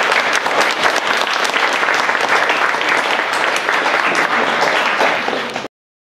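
Audience applauding: dense, steady clapping that cuts off abruptly near the end.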